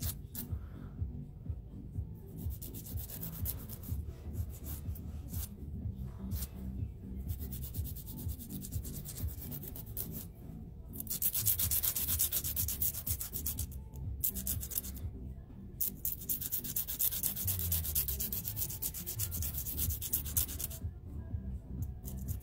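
A hand nail file rasping across a fingernail in quick back-and-forth strokes, in spells broken by short pauses, as the nail's sides and free edge are shaped. The file is a metal nail file with a replaceable abrasive pad.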